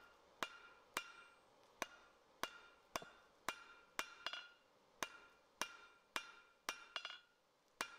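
Blacksmith's hand hammer striking red-hot steel bar stock on the edge of an anvil, a steady run of about two blows a second, each with a short metallic ring. The smith is driving down the steel just behind a tenon to form a shoulder, a forged faux collar.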